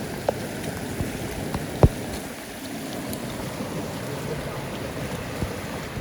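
Steady rushing noise of typhoon floodwater and wind, with a sharp knock about two seconds in and a fainter one just before.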